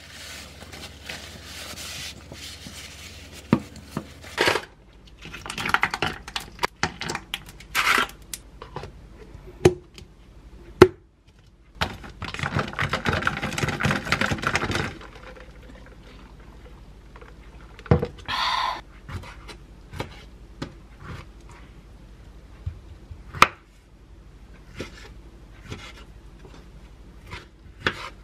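Kitchen handling sounds: a paper towel rustling as it wipes a plastic cup, then plastic lids, cups and a straw being handled, with scattered sharp clicks and knocks on the counter.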